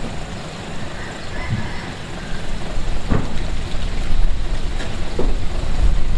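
Heavy construction machinery running: a steady low diesel engine rumble that grows louder partway through, with a couple of short knocks, one midway and one near the end.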